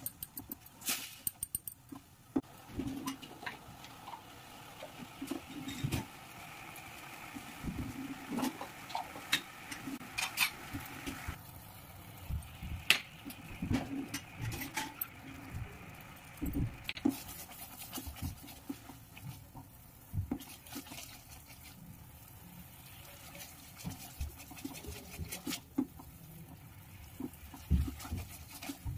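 Sugar-and-water syrup simmering in a stainless steel pan, with light bubbling. Throughout, a silicone spatula stirs the syrup with scrapes, small sharp clicks and knocks against the pan.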